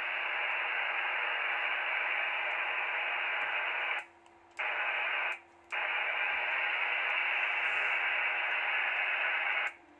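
Icom HF transceiver's speaker giving off steady static hiss on the 40 m band in lower sideband, with a faint steady low tone beneath it. The hiss cuts out twice in the middle, for about half a second each time, as the microphone is keyed, and cuts off again just before the end.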